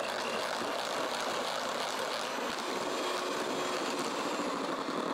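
Handheld electric mixer running steadily, its twin beaters whipping cream mixed with sweetened condensed milk in a plastic jug until it firms up.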